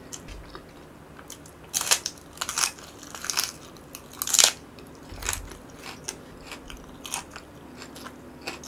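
Loud, crisp crunches of teeth biting into a raw Korean green onion (daepa) stalk: about four sharp bites between two and four and a half seconds in, then quieter chewing.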